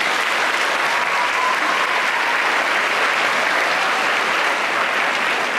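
Audience applauding, a steady mass of clapping.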